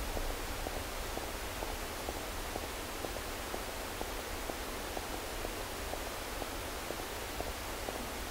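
Electronic noise texture from a live-coded performance: a steady hiss with about three short clicks a second scattered over it.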